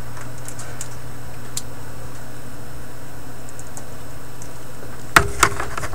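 Viking Model 324 record player running on its BSR turntable, with a steady low hum throughout. About five seconds in there are two sharp clicks a quarter second apart, then a few lighter ticks as the player is handled.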